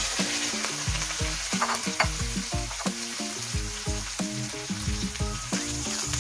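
Chopped sponge gourd (patola) sizzling as it fries in hot oil with sautéed garlic and onion in a nonstick wok. Background music with a steady beat plays underneath.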